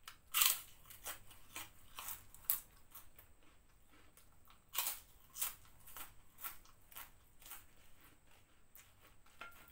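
Crisp prawn crackers (kerupuk udang) being bitten and chewed close to a clip-on microphone. A loud crunching bite comes about half a second in and another near the middle, with smaller crunches about twice a second between them.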